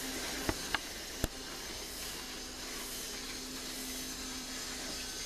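Toy train running around its oval track, a steady motor whir with a faint hum. Three sharp clicks come in the first second and a half.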